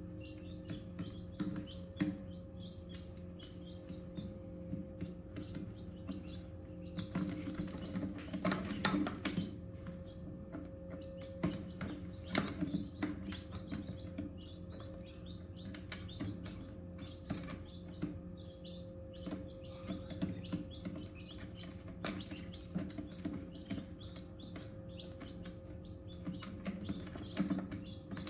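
Newly hatched chicks peeping inside an egg incubator: many short, high peeps coming thick and fast over a steady hum. About seven seconds in there is a louder stretch of noise lasting two to three seconds.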